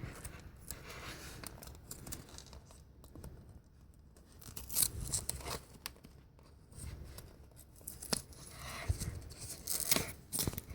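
Packaging being torn and picked at by hand, a series of irregular tearing, scraping and snipping sounds as a stubborn speed-cube package is worked open.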